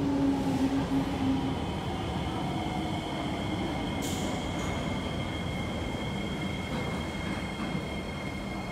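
Singapore MRT metro train moving along the platform: a steady rumble with a tone that falls over the first two seconds, a steady high-pitched whine above it, and a sharp click about four seconds in.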